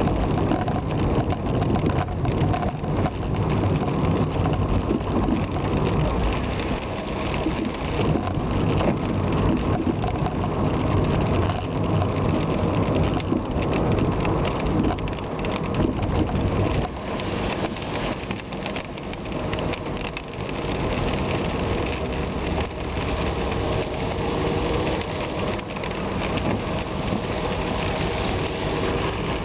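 Steady rain with dense drop ticks hitting a surface, over a vehicle engine running underneath whose pitch drifts slowly up and down.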